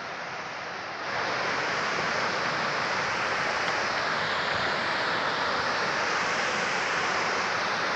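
Waterfall rushing: a steady roar of falling water that grows louder about a second in, then holds even.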